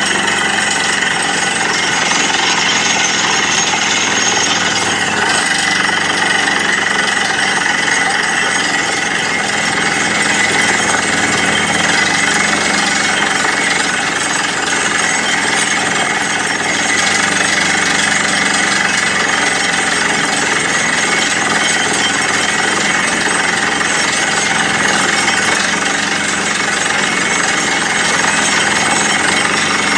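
Borewell drilling rig hammer-drilling into rock: a loud, steady, rapid hammering with the rush of compressed air blowing dust and cuttings out of the hole, over the rig's running engine.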